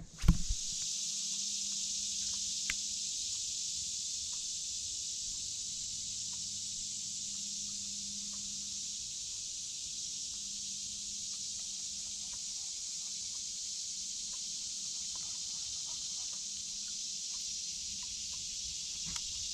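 Steady high-pitched insect chorus, a constant shrill hiss, with one sharp knock right at the start.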